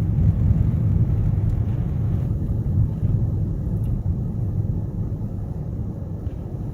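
Steady low rumble of a car driving through a blizzard: road, tyre and engine noise, a little fuller for the first couple of seconds.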